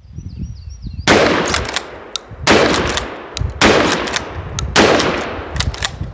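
Charles Daly 301 pump-action 12-gauge shotgun firing four shots, a little over a second apart, starting about a second in, with short, sharp clacks between the shots.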